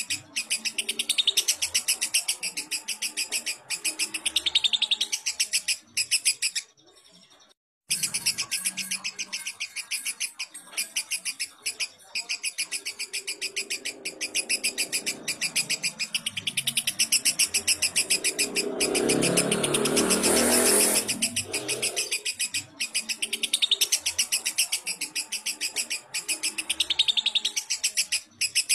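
Lovebird chattering in long runs of rapid, evenly repeated high chirps, with a brief break about six and a half seconds in.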